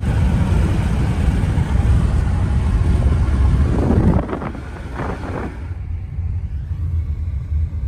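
Low, steady rumble of a vehicle, loud for about four seconds and then dropping to a quieter rumble.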